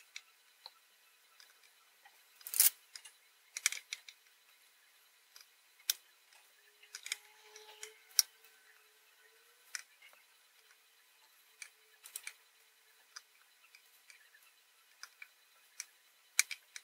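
Irregular sharp clicks and taps of fine metal tweezers picking up tiny surface-mount LEDs off a hard tabletop and setting them onto a circuit board, a few of them louder than the rest.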